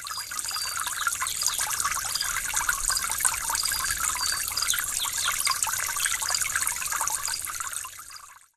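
Running water trickling and babbling, with short high chirps scattered through it; it fades out near the end.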